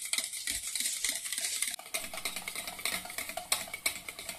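Wire whisk beating eggs in a stainless steel bowl, the tines clicking quickly and evenly against the metal. The eggs are being whipped toward a foam.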